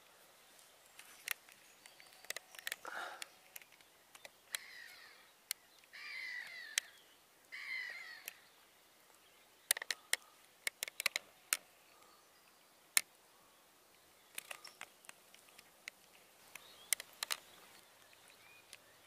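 A bird calling three times in a row, each call about half a second long, amid scattered sharp clicks and taps over faint outdoor background noise.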